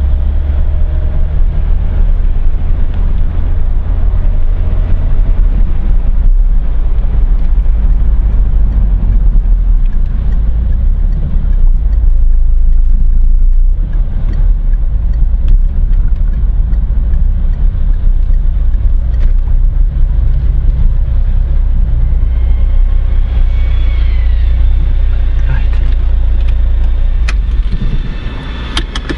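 Car interior noise while driving slowly: a steady low rumble of engine and tyres heard from inside the cabin, easing off near the end as the car pulls up and stops.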